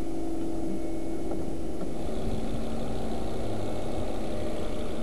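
Turbocharged five-cylinder engine of a 2006 Volvo XC70 idling steadily, heard up close with the hood open; it is running with an add-on hydrogen (HHO) generator switched on.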